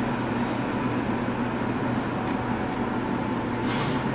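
Steady hum and running noise inside the cab of a Seibu electric train standing still, its onboard equipment idling, with a short hiss about three and a half seconds in.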